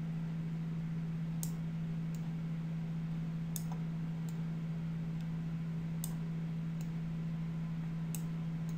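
Computer mouse clicking, about eight sharp clicks spaced irregularly, over a steady low electrical hum.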